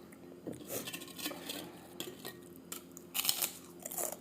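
Cutlery scraping and clinking against a plate while someone eats ketoprak, in several short spells.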